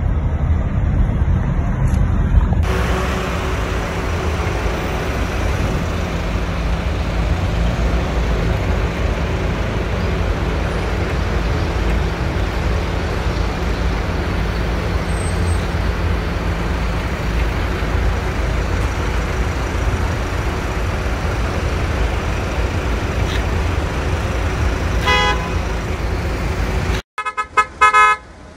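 A car driving on the road, with steady low road and engine rumble. A short car-horn toot comes about three seconds before the end, and a quick run of several honks follows right at the end.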